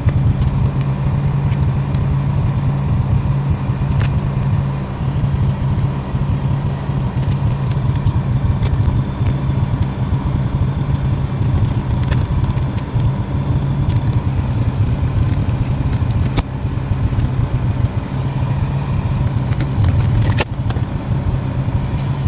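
Car driving along, a steady engine and road rumble heard from inside the cabin, with a few faint clicks scattered through it.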